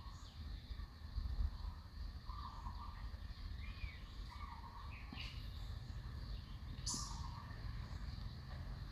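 Outdoor ambience: a steady low rumble, with faint short chirps repeating about every second and a half and a couple of sharp clicks.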